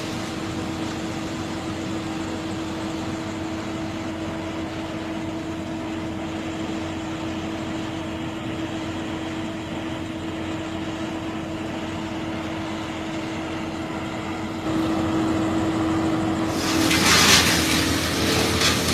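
Engine running steadily at constant speed with a steady hum. About three-quarters of the way through it grows louder, and a harsher rush of noise comes in near the end.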